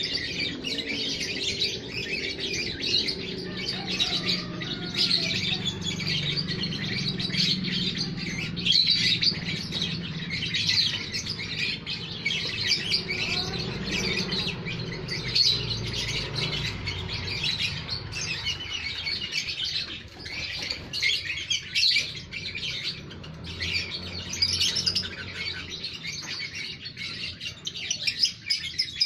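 Many lovebirds chirping at once, a dense, continuous chatter of rapid high chirps. A low hum runs underneath through the first half or so.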